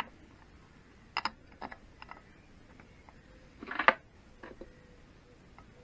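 Light metallic clicks and clinks as a steel plate is handled and lifted off an aluminium gearbox case: a few scattered taps in the first two seconds, then a louder rattle of metal on metal just before four seconds in.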